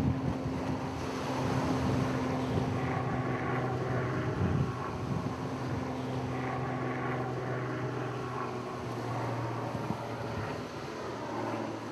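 A steady low droning hum under a wash of noise, its pitch shifting a few times.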